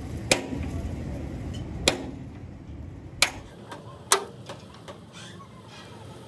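Four sharp metal strikes, irregularly spaced, each with a brief ring: a hammer striking the steel truck chassis frame. A low rumble runs under the first half and fades out.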